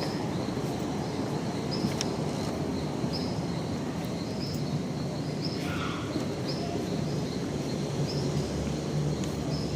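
Steady background hubbub with a short, high chirp repeating about once a second, and a few faint clicks.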